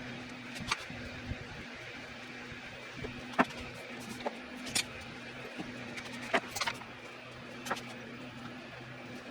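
Steady low electrical-sounding hum with irregular sharp clicks and taps, about nine of them, the loudest about three and a half seconds in.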